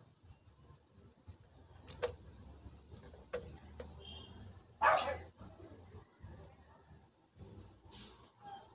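Workbench handling noise as a volume potentiometer is worked on an amplifier circuit board: a few sharp clicks and knocks, one louder short rushing noise about five seconds in, and a brief hiss near the end, over a steady low hum.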